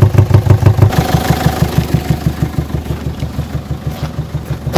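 Peugeot 807 2.0 HDi diesel engine running with a strong, even pulsing beat. About a second in, the beat quickens and a hiss joins it. The pulsing is air puffing back through the intake manifold to the air filter, which the mechanic puts down to a sticking hydraulic lifter holding a valve open.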